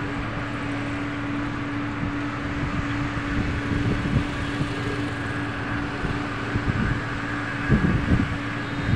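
Steady engine hum of road-construction machinery working on the road surface, with uneven low rumble of wind on the microphone that grows louder near the end.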